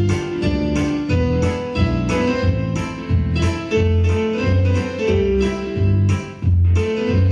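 Instrumental music led by piano or electric keyboard, with a strong bass and a steady beat of about two notes a second under a simple melody.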